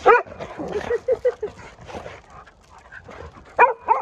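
Pet dogs making short, high, excited calls as they greet their owner: a loud call at the start, a quick run of shorter ones about a second in, and two more loud ones near the end.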